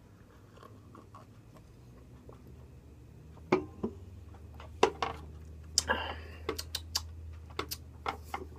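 A person tasting beer: a sip from the glass, then a run of wet mouth clicks and lip smacks as he works the beer around his mouth, with a low hum underneath.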